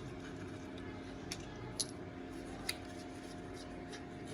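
Three light, sharp clicks within about a second and a half, the sound of hard plastic and metal parts being handled as the ignition coils come off a Honda Civic engine. A faint steady hum runs underneath.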